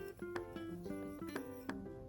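Soft background music: a plucked string instrument picking single notes, a few each second.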